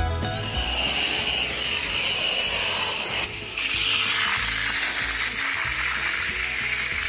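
Rinse-extraction upholstery tool spraying cleaning solution into a sofa's fabric and vacuuming it back out: a steady rushing hiss that swells about halfway through.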